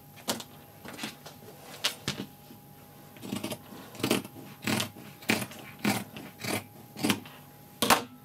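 Scissors snipping through faux fur fabric: a few scattered snips, then a steady run of cuts about every two-thirds of a second. Near the end comes one sharper, louder clack as the scissors are set down on the cutting mat.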